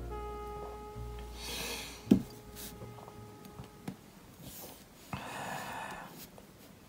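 Soft background music fading out, then a sharp knock about two seconds in, and a few lighter knocks and a brief rub near the end as an emptied beer glass is handled and set down on a cardboard coaster.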